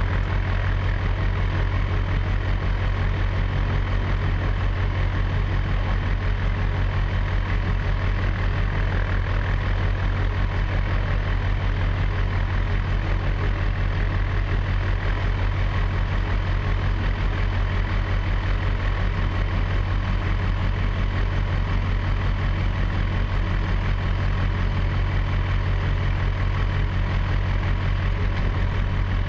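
Tecnam P92 ultralight aircraft's engine and propeller running steadily, a constant low drone with no change in pitch.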